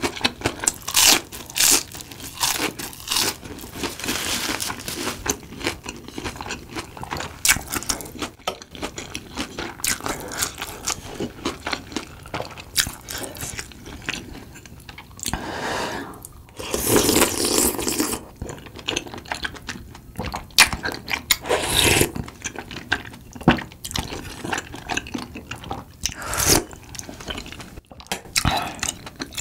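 Close-miked eating of fried Korean snacks and tteokbokki: a steady run of crunching, biting and chewing with many sharp crackles, and a louder, longer stretch of about two seconds just past the middle.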